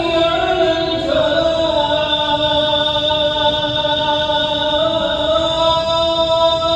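A male muezzin chanting the adhan into a microphone: one long, drawn-out sung phrase that steps down in pitch about a second in and then holds.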